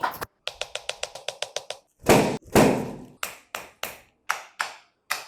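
A chiropractor's hammer tapping. A quick run of about eight sharp taps a second with a faint hum under it, then two heavier strikes, then single taps about three a second.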